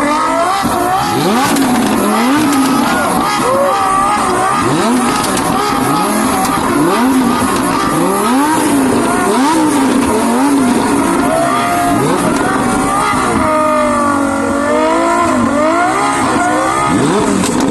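Supercar engine revved repeatedly in sharp blips: the pitch climbs quickly and drops back about once a second. Later it holds steadier, wavering revs.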